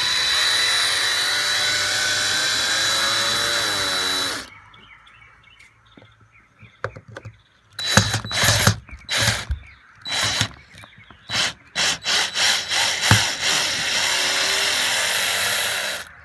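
20-volt cordless drill-driver backing out Phillips screws. The motor runs steadily with a high whine for about four seconds, then gives a string of short trigger bursts, then runs steadily again for a couple of seconds near the end.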